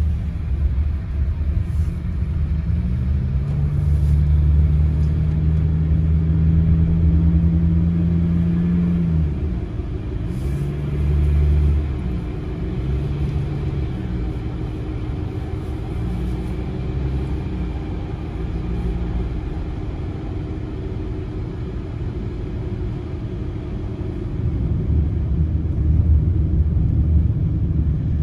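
Road and engine noise heard from inside a moving vehicle: a steady low rumble. A low engine hum rises about three seconds in, holds, and drops away around nine seconds. The rumble grows louder near the end.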